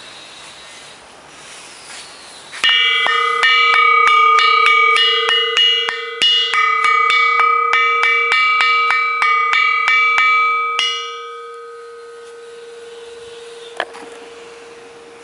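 Cast bronze bell rung with rapid repeated strikes, about three a second, for some eight seconds, several clear ringing tones sounding together. The strikes then stop and the ring fades, the lowest tone ringing on, with a single click near the end.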